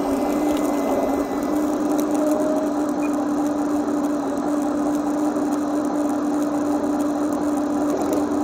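Small electric motor of a radio-controlled model machine running at a steady speed, giving a steady whine that steps up slightly in pitch about a second and a half in.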